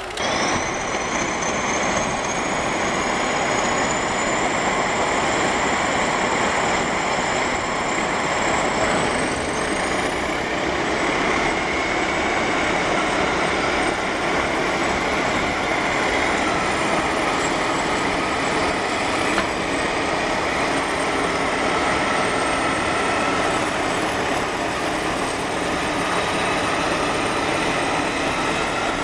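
Several crawler bulldozers running together under load: a dense, steady diesel din with high metallic squealing tones that waver and slowly glide in pitch.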